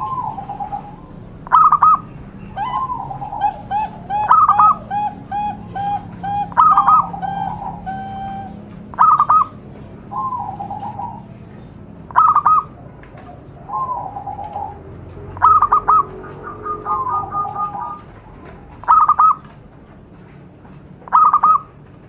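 Zebra doves (perkutut) calling: fast runs of short staccato cooing notes, broken every two to three seconds by a louder, higher double note. Near the middle, two call series overlap.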